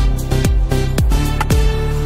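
Background music with a steady beat of deep drum hits, about two a second, under sustained pitched notes.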